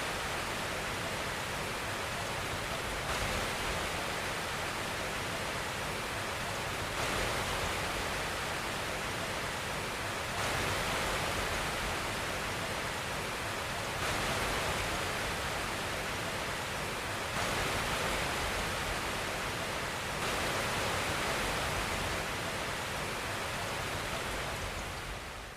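Steady white noise for baby sleep: an even hiss spread across all pitches, with a slight step in level every three to four seconds. It begins to fade out at the very end.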